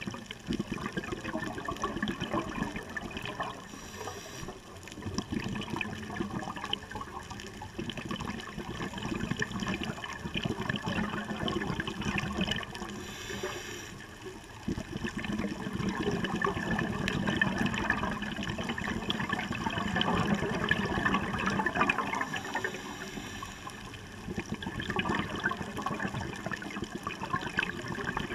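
Scuba diver breathing through a regulator underwater. Long stretches of gurgling exhaled bubbles are broken by a brief hiss of inhalation about every nine seconds.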